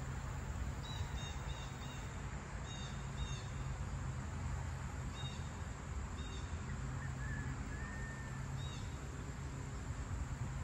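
Outdoor birds giving short, high call notes every second or two, with a faint short whistle partway through, over a steady low background rumble.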